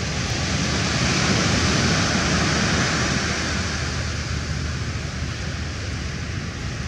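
Low steady drone of an inshore fishing boat's engine passing close offshore, under the hiss of waves washing on the shore, which swells about a second in and eases after about three seconds.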